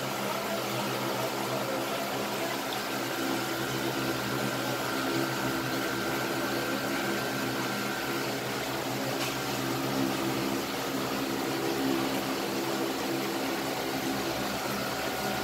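Steady electric hum with a hiss of moving water: aquarium pumps and filters running.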